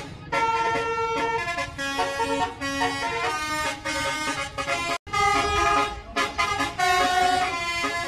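Telolet horn on a coach bus playing a quick melody of held pitched notes that change every fraction of a second, breaking off for an instant about five seconds in.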